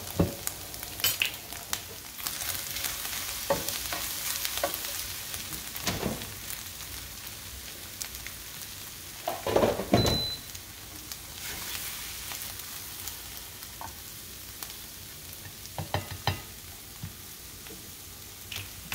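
Scrambled eggs and salami sizzling in a nonstick frying pan, with a slotted spatula scraping and scooping through them and a few short knocks. The loudest scrape comes about halfway through.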